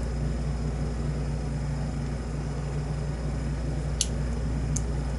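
Steady low hum of room noise, with two small sharp clicks near the end as a plug follower is worked into an Abus padlock's core to push it out for disassembly.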